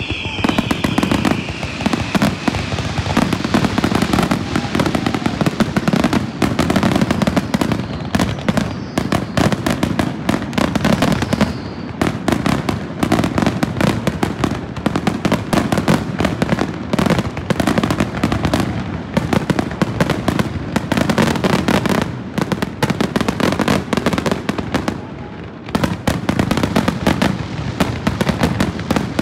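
Fireworks display: aerial shells bursting overhead in a dense, rapid barrage of loud bangs, easing off briefly about 25 seconds in before picking up again.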